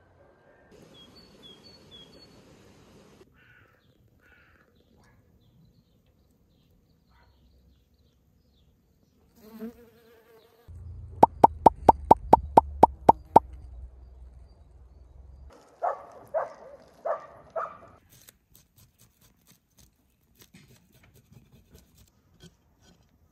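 A rapid, even run of about ten sharp clicks lasting a couple of seconds, the loudest sound here, over a low hum. A few faint high bird chirps come near the start, and five short pitched calls come after the clicks.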